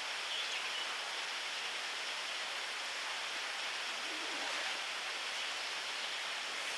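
Steady, even rushing of a burn (small stream) running near the camp.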